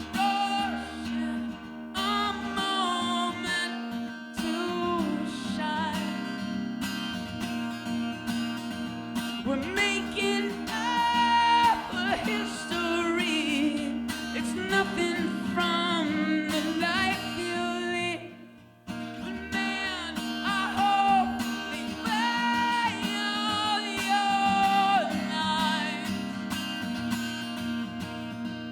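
Live song on strummed acoustic guitar with a sung melody over it. The playing drops out briefly about two-thirds of the way through, then picks up again.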